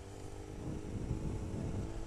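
Sport motorcycle engine running steadily while riding, heard from the rider's seat, with wind rumbling on the microphone; the engine note holds steady and grows gradually louder.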